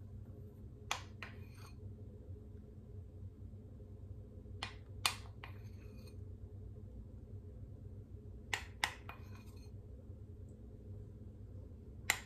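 A metal spoon clinking against a glass bowl as frosting is scooped out, in pairs of sharp clinks about every four seconds, over a faint low hum.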